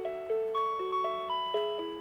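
Rhythm Clock 'Melody Club' cassette melody alarm clock playing a J-pop tune in electronic chime tones, a melody over a simple accompaniment with each note struck and then fading.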